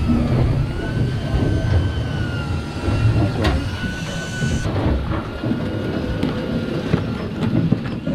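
Electric fishing winch whining as it hauls line, the pitch wavering a little, over the steady low rumble of the boat's Detroit 60 Series diesel engine. The whine stops about halfway through, leaving the engine rumble.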